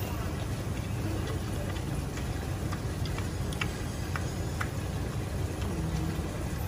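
A mini pig and a mara chewing chopped cabbage leaves, apple and pumpkin: irregular crisp crunches over a steady low rumble.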